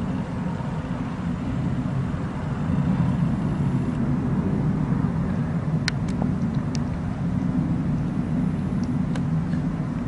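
A steady, loud, low roaring rumble from the night sky, picked up by a camcorder microphone, of unexplained origin; it might have been a jet afterburner. A few faint clicks come about six seconds in.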